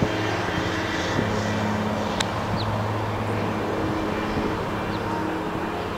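Diesel locomotives of an approaching freight train heard from far off: a steady low engine drone with a faint airy hiss, and one sharp tick about two seconds in.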